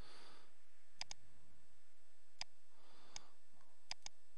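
Computer mouse clicking: about six sharp clicks, some in quick pairs, over a faint steady hum and hiss.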